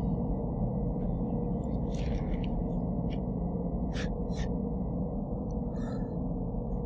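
A low, steady rumbling drone with short breathy gasps over it: one about two seconds in, a quick pair about four seconds in, and a cluster near six seconds.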